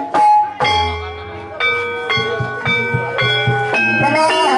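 Traditional Banyumas ebeg accompaniment music: struck, bell-like pitched notes played about every half second over low drum beats, with a wavering melody line coming in near the end.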